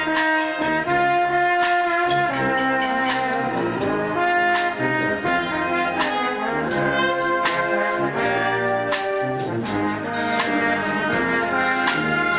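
Brass band playing a piece, with sustained brass chords and melody over a steady drum beat.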